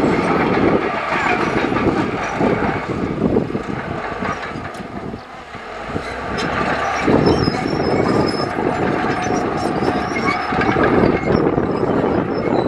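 Heavy earthmoving machinery at work: a diesel engine running under load with clattering metal. The sound dips briefly about halfway through, then builds back up.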